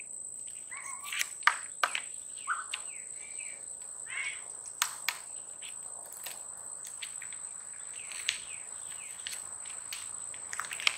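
A steady high-pitched insect drone, with birds chirping at intervals. Sharp clicks and rustles come from a paper pamphlet's pages being turned over plastic wrapping.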